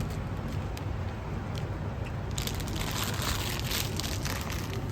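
Packaging crinkling and crackling as it is handled and squeezed, starting about two seconds in, over a low steady rumble.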